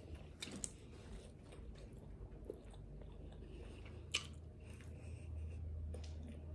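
A person eating a Chipotle chicken burrito bowl: chewing, with a few sharp clicks of a metal fork. The loudest click comes about four seconds in, as the forkful reaches the mouth. A faint low hum runs underneath.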